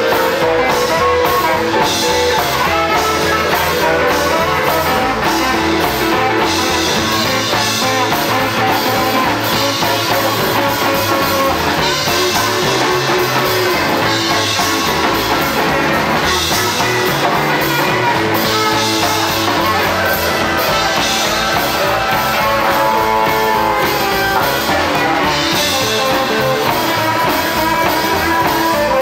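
Live rockabilly band playing an instrumental passage with no singing: electric guitar over upright double bass and a drum kit.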